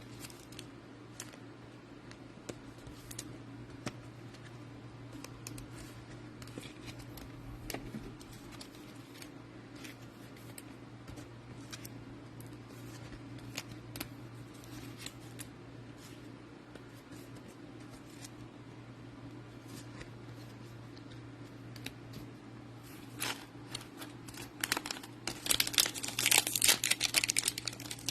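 Scattered light clicks and taps of cards and packaging being handled over a steady low hum, then near the end the loud crinkling and tearing of a trading-card pack wrapper being ripped open.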